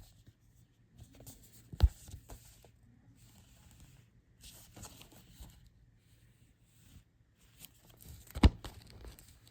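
Plastic shrink-wrap being torn and peeled off a Blu-ray case in several crackling stretches, with two sharp clicks: one about two seconds in and one near the end.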